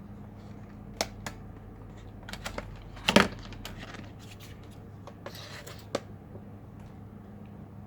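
Hands handling a laptop and small tools: a scatter of light clicks and taps, with the loudest cluster about three seconds in and a few more near the end, over a steady low electrical hum.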